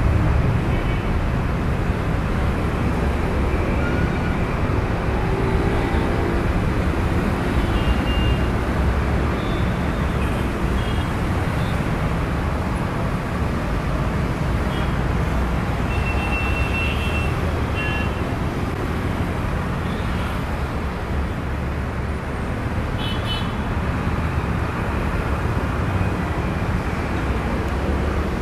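Twin-engine jet airliner's engines at takeoff power through the takeoff roll and climb-out, a steady rushing noise with a deep rumble underneath.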